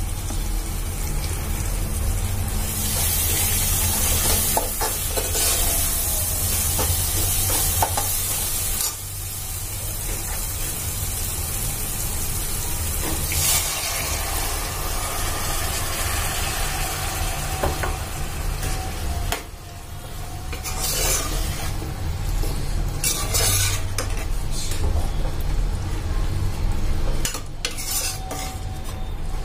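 A steel ladle stirring and scraping in a pressure cooker as cooked kidney beans are tipped into spiced masala sizzling in oil, with the ladle clinking against the pot now and then.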